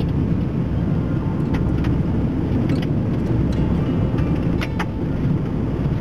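Steady rumble of a car driving, as heard inside the cabin: engine and road noise, with scattered sharp ticks.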